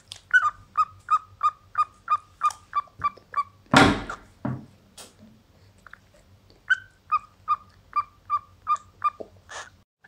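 Cockatiel chirping in a run of short, evenly spaced chirps, about three a second. A loud thump about four seconds in breaks the run, and the chirping picks up again after a short pause.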